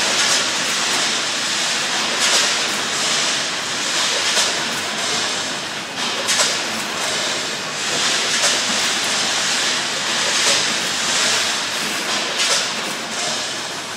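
A PFM ZC1 vertical form-fill-seal bagger and its 10-head weigher are running in production on almonds, with a dense steady hiss and clatter. A louder surge of rattling comes about every two seconds, in step with the machine's 29 bags a minute.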